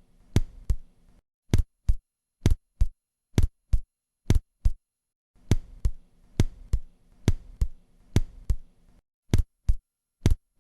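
Synthesized heart sounds at the cardiac apex: a steady 'lub-dub' of first and second heart sounds about once a second. The demonstration alternates a normal first heart sound with a split first heart sound, where the first sound is blurred into two closely spaced parts. A faint hiss comes and goes between the stretches.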